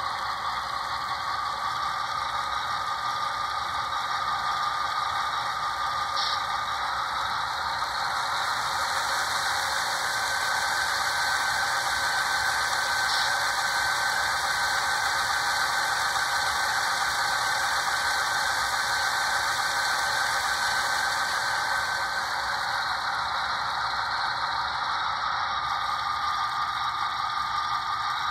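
Sound-equipped HO scale GE ES44AC model locomotive playing its diesel engine sound through its small onboard speaker. A whining tone in it steps up in pitch about 2 and 10 seconds in, holds, and steps back down after about 22 seconds, as the engine sound notches up and back down.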